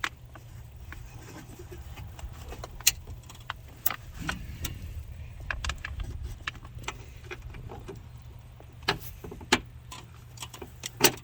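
Scattered sharp metallic clicks and taps as a bolt and hand tools knock against the truck door's sheet metal while a rear window regulator is worked into place, over a steady low hum.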